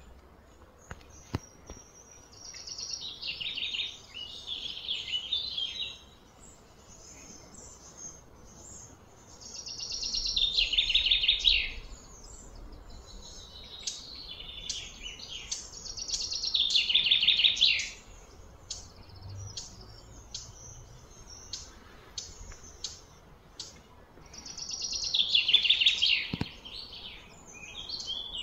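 A bird singing loud phrases of rapidly repeated high notes, each two to three seconds long, four times, with shorter chirps in between.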